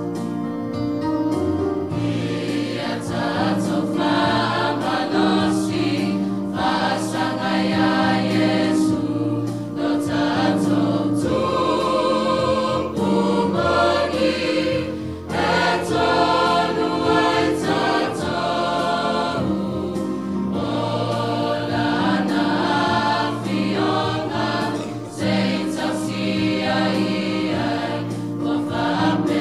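Church choir singing a Samoan hymn in parts, the full choir coming in about two seconds in.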